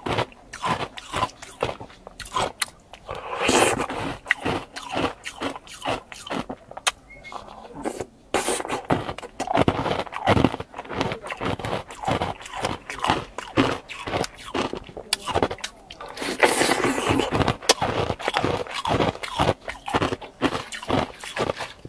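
Close-up eating sounds of a soft-serve ice cream cone being bitten, licked and chewed: many short, irregular mouth clicks and smacks in quick succession.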